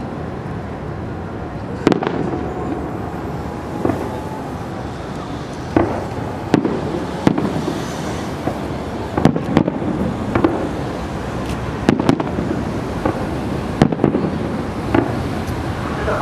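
Aerial firework shells bursting: a string of sharp booms and cracks, about one every second or so and sometimes two close together, over steady background noise.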